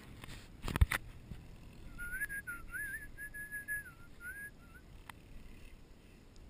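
A sharp knock about a second in, then a person whistling a short tune of held notes and little slides for about three seconds.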